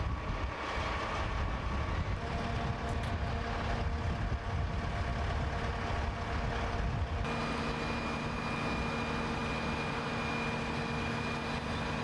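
Steady drone of idling vehicle engines and machinery with a low rumble. Several steady hum tones run through it and shift abruptly about seven seconds in.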